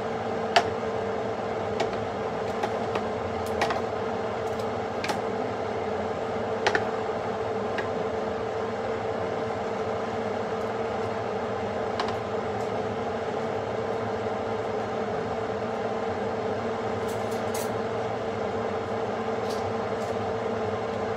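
Steady mechanical hum holding one constant tone, with a few light clicks and taps scattered through it.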